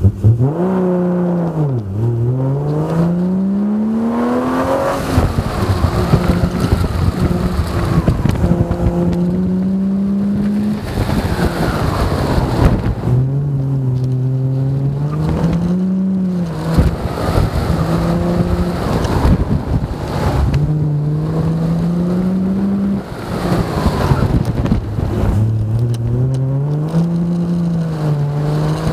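Triumph GTR5's engine under hard use on an autocross run, revving up and dropping back again and again as the car accelerates between cones and lifts off for the turns.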